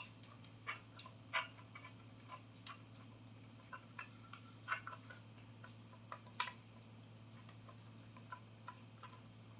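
Hard parts of a small pin spot light and its mounting bracket being handled and fitted together: faint, irregular clicks and taps, the sharpest about six and a half seconds in, over a low steady hum.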